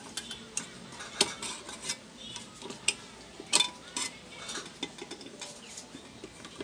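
Pliers clicking and clinking against the metal parts and plastic housing inside an opened rice cooker base: a string of irregular sharp clicks, the loudest about a second in and again at about three and a half seconds.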